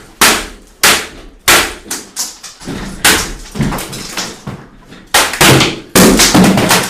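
A computer keyboard being smashed again and again against a hard surface: about a dozen loud, irregular plastic bangs and clattering rattles, some in quick succession near the end. The keyboard is being beaten in an attempt to break it.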